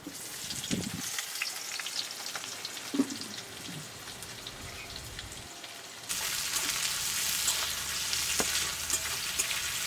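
Chopped onion sizzling as it fries in hot mustard oil in a kadai, with scattered clicks from stirring. The sizzle grows abruptly louder about six seconds in.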